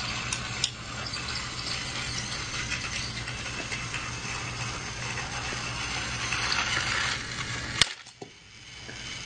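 A battery-powered toy train's small motor and plastic gears whir steadily with a low hum. A sharp click comes near the end, and the whirring drops out for about a second before starting up again.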